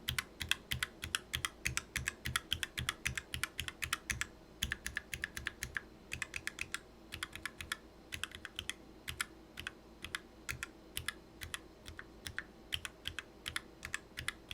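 Typing on a mechanical keyboard: a continuous run of sharp keystroke clicks, about five or six a second.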